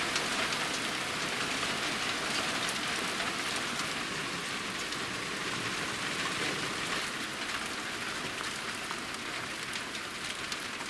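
Hail falling steadily: a dense, even patter of many small pellets hitting the ground, easing slightly toward the end.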